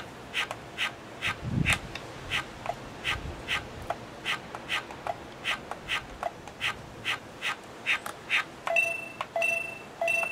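An electronic musical toy's speaker giving a steady train of short clicking chirps, about three a second, as it stutters on a supply voltage starved by a series potentiometer. Near the end it gives three short beeps.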